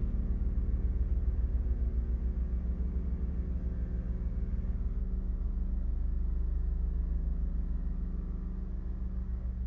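Deep, steady drone with a fast flutter in its lowest notes and a few steady low tones above it. The higher part thins out about halfway through.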